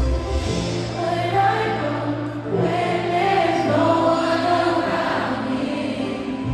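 Live concert music in an arena, heard from the stands: singing voices hold long notes over lighter backing, with the deep bass dropped out.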